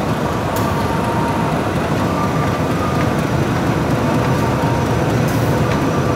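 Diesel shunting locomotive running light as it rolls past, giving a steady low engine rumble with a couple of brief clicks.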